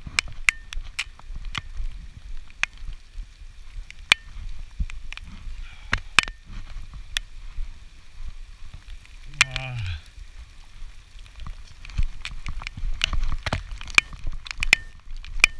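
Heavy rain in a storm, with big drops striking hard and irregularly close to the microphone as sharp taps, over a low wind rumble. About nine and a half seconds in comes a short falling groan, like a voice.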